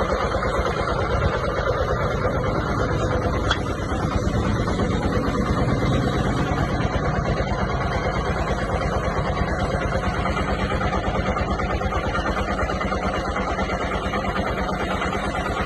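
Machinery running steadily with a rapid, even pounding beat.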